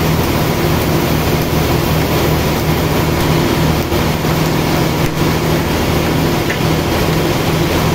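Sawmill machinery running steadily: an even, loud mechanical hum with constant low tones under a wash of noise.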